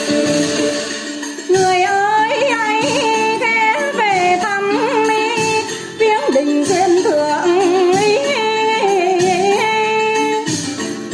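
Hát văn (chầu văn) singing: a woman comes in about a second and a half in over the instrumental accompaniment and holds long, ornamented lines that bend and waver in pitch.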